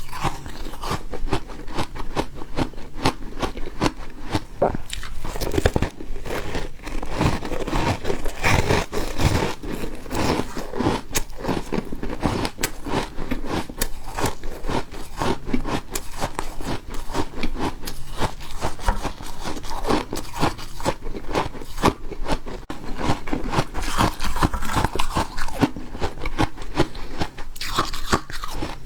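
Refrozen ice being bitten and chewed close to the microphone: a dense, continuous run of sharp crunches and cracks.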